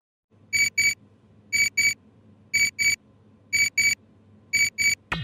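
Electronic beeping like a digital alarm clock: a high double beep repeated once a second, five pairs in all.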